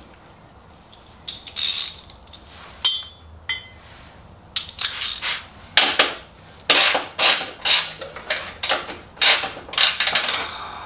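Hand ratchet wrench worked on a bolt: a sharp metallic clink of the tool about three seconds in, then a steady run of short ratcheting strokes, two or three a second.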